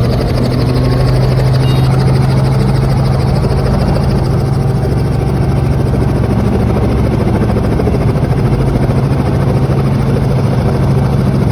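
Helicopter rotor and turbine engine running, a loud, steady low drone with a constant hum and a wash of noise above it.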